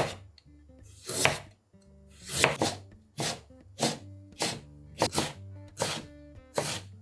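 Chef's knife cutting a raw carrot on a plastic cutting board: about ten separate crisp strokes, one or two a second, as the carrot is sliced and diced.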